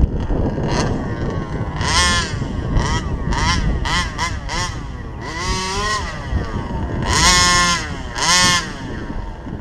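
HPI Baja RC car's 29cc two-stroke reed-valve engine revving in a series of throttle bursts, its pitch rising and falling with each one. There are several short blips in the middle and longer, louder revs near the end.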